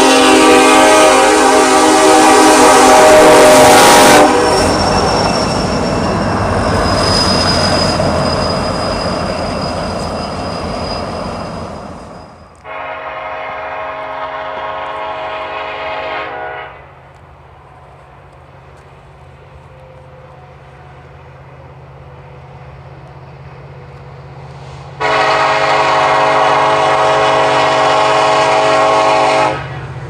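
Nathan K5LLA five-chime locomotive air horn sounding in three blasts. The first is a long chord over the loud noise of a freight train passing close by, and it stops about four seconds in while the train noise fades away. Two more blasts of about four seconds each come from an approaching freight locomotive, with a low engine drone between them.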